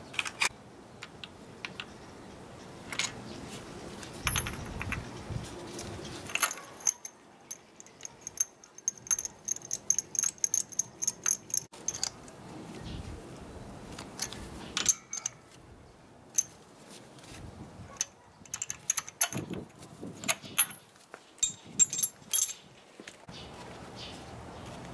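Metal hand tools clinking and clicking as a spark plug socket and wrench are worked in a motorcycle engine's plug hole. The sharp metallic clicks come in irregular runs, with a light ringing during the first run.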